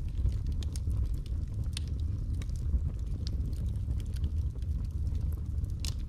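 Wood fire burning in a fireplace: a steady low rumble of flame with scattered crackles and pops, the sharpest pop near the end.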